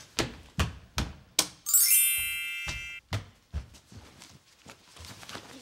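Soft thumps, about two a second, of pillows striking in a pillow fight. About a second and a half in, a bright, ringing chime sound effect sweeps in and holds for about a second.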